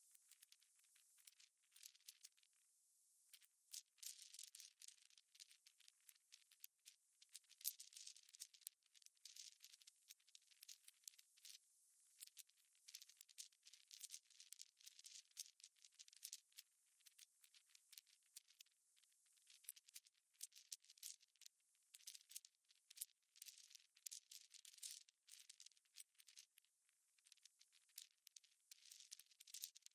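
Near silence, with faint, irregular high crackling and ticking throughout.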